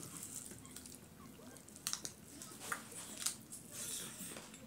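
Close-up eating sounds: rice and chicken curry mixed by hand on steel plates and chewed, with wet squishing and several short sharp clicks, the loudest about two and three seconds in.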